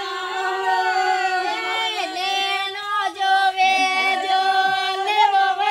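A group of women singing a Gavari folk song of Mewar together, unaccompanied, on long held notes.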